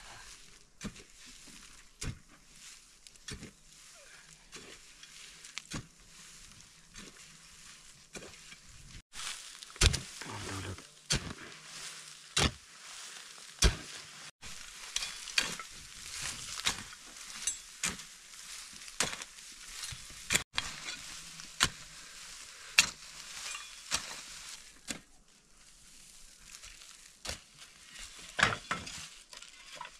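A short-handled hoe chopping and scraping into dry, leafy soil, loosening the earth around the base of a plant. The blade strikes the ground about once a second, unevenly, with gritty scraping of loose dirt between the strokes; the strikes are busiest and loudest in the middle stretch.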